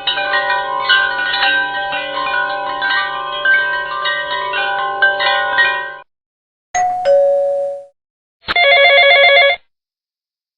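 A run of separate chime and bell sound effects. About six seconds of many overlapping ringing chime tones, then a short two-note chime stepping down in pitch about seven seconds in, then a trilling bell ring lasting about a second.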